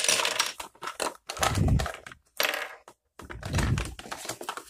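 Small plastic camera accessories clicking and clattering in irregular bursts as hands rummage through a hard plastic storage box, with two dull thumps.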